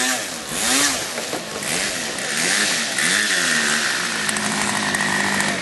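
RC float plane's motor revving up and down in repeated surges as the plane is taxied on the water, then running at a steady pitch for the last second or so.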